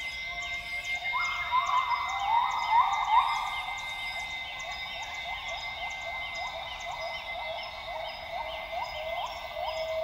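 Northern grey gibbons singing: a long run of rising whoop notes, about one and a half a second. The calls are loudest a couple of seconds in and settle slightly lower in pitch towards the end. A steady high-pitched drone and regular ticking run behind them.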